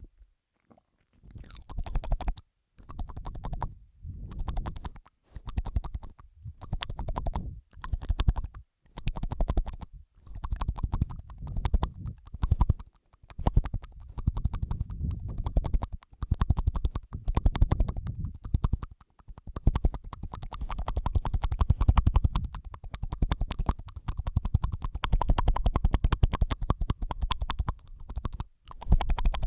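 Close-miked ASMR mouth sounds, layered: wet clicks, licks and smacks in dense bursts of a second or two with short pauses between. The bursts run almost without a break near the end.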